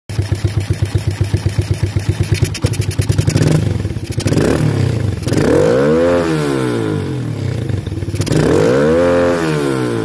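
Motorcycle engine with a Keihin flatside carburettor, heard at the open carburettor intake: it idles with an even pulsing beat for the first few seconds, then is revved, the pitch rising and falling back twice.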